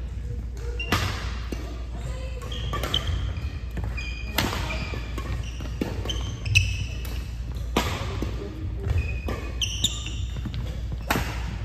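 Badminton play echoing in a gymnasium: sharp cracks of rackets striking shuttlecocks, several of them loud, with short high squeaks of court shoes on the wooden floor in between.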